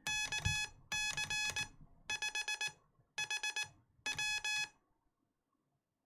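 Morse code (CW) sent by hand on iambic paddles through a Heathkit electronic keyer: a buzzy beep tone keyed on and off in short and long elements, five groups of characters with short gaps between them, stopping a little before the end.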